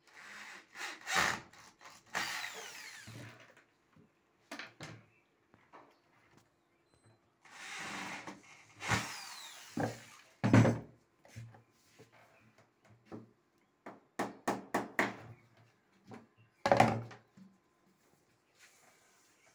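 Electric drill running in two bursts of a few seconds each, its motor winding down in pitch after each, followed by a series of sharp knocks.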